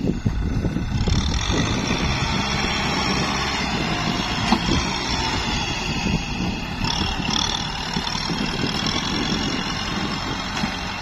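Small diesel farm tractor's engine running steadily under load as its front blade pushes through mud, with one sharp click about four and a half seconds in.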